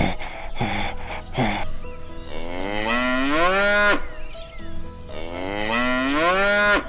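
A cow mooing twice, two long calls of about two seconds each that rise in pitch, after a couple of short sounds at the start.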